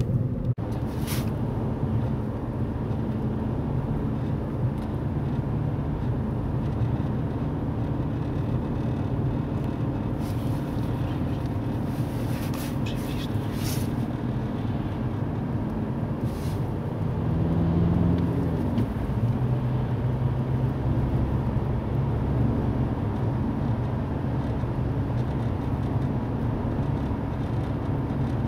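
Audi A3 8P's 1.9 TDI (BKC) four-cylinder diesel engine running steadily, with a few short sharp clicks over it. It is running with a metallic rattle at around 2000 rpm whose cause the owner cannot identify.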